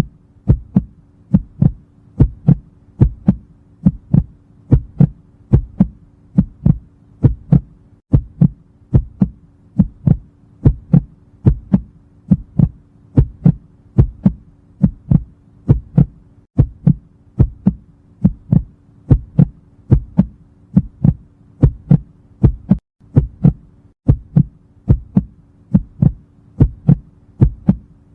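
Heartbeat sound effect: a regular lub-dub double thump about once a second, over a faint steady hum.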